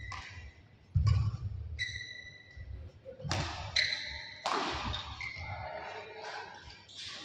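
Badminton rally: court shoes squeaking on the floor in short squeals, with a few sharp knocks from racket hits and footfalls, the loudest a heavy thud about a second in.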